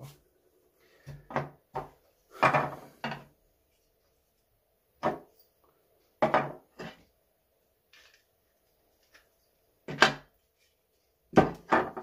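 Knocks and rattles of a Makita DTM50Z multi-tool's plastic housing and parts being handled, set down and fitted together on a wooden table, in about six separate short clusters.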